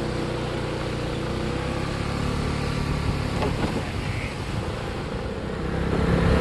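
Motorbike engine running as the bike pulls away, its steady note blurring after a couple of seconds and the overall noise building near the end as it picks up speed.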